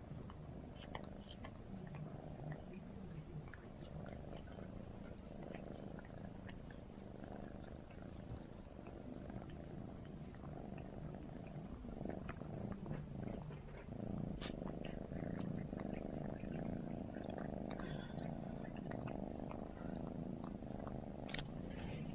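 Cat purring steadily at close range, growing a little louder about two-thirds of the way through, with faint small clicks of tongue-licking as one cat grooms the other and one brief sharp click near the end.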